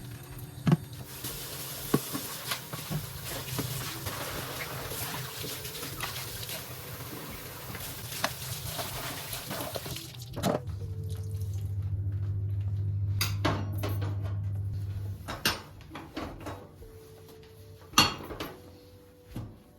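Tap water running into a kitchen sink with dishes clinking, for about ten seconds. Then the water stops, a low steady hum sounds for about four seconds, and scattered knocks of dishes and cutlery follow.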